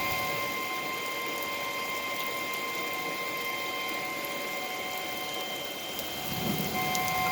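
Emergency Alert System tornado-warning alert tone: one steady, unbroken electronic tone, heard over steady rain.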